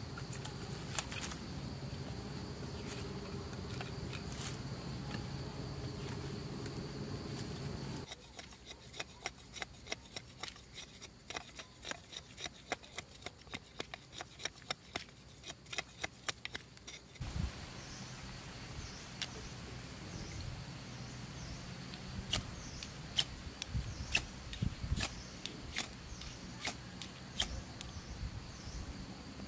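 A machete shaving thin curls off a split bamboo stick: a quick run of sharp scraping strokes, several a second, that stop suddenly. Insects chirp steadily in the background, with scattered sharp clicks near the end.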